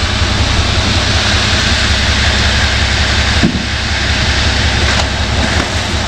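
A machine running steadily with a loud even hiss over a fast low rumble, briefly dipping about three and a half seconds in.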